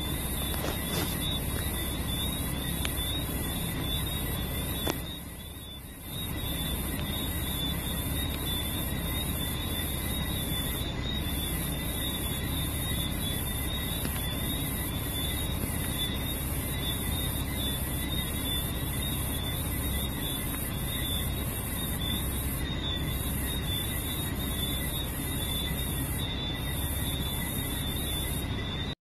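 Steady outdoor evening background noise picked up by a phone: a continuous shrill, high-pitched tone over a low rumble, dipping briefly about five seconds in.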